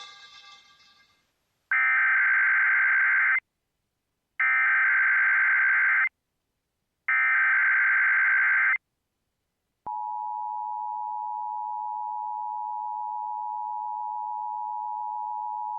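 Emergency Alert System required monthly test: three identical buzzy bursts of SAME digital header data, each about a second and a half long, followed about ten seconds in by the steady two-tone EAS attention signal. Station music fades out at the very start.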